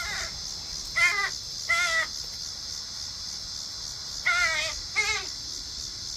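Crows cawing: two harsh caws in quick succession, a pause of about two seconds, then two more, over a steady high hiss.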